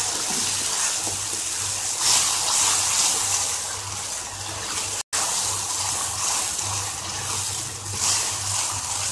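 Tomato purée sizzling in hot oil in a non-stick kadhai as it is stirred in with a wooden spatula, a steady frying hiss that swells with the stirring. The sound cuts out for an instant about five seconds in.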